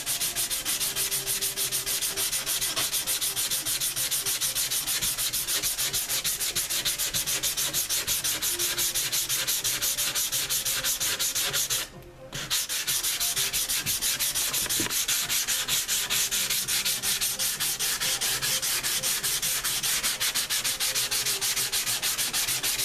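120-grit sandpaper on a Soft Sanders foam sanding block, rubbed by hand in rapid, even back-and-forth strokes over body glaze, with one brief pause about twelve seconds in. The glaze cuts easily and does not clog the paper.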